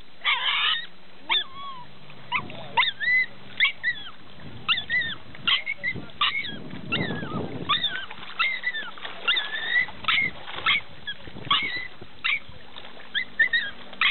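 A dog whining in short, high calls that rise and fall, repeated again and again, an excited dog being held back from the prey.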